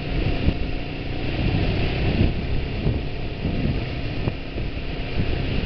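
Riding sound from a motorcycle on a wet road: wind buffeting the microphone over the rumble of the engine and the road.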